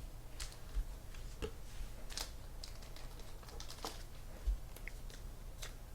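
Scattered light clicks and taps, irregular and a few at a time, over a low steady hum.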